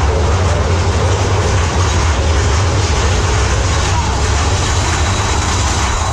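Mine-train roller coaster running on its track through a cave, a steady loud low rumble with rushing noise.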